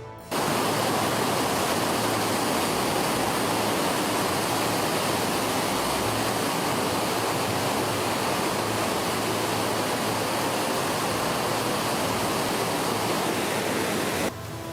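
Fast-moving floodwater rushing through a town street: a steady, loud, even rush of water that cuts off abruptly near the end.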